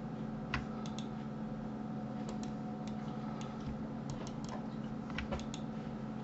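Irregular light clicks of a computer mouse and keyboard, about fifteen of them, scattered over a steady low hum.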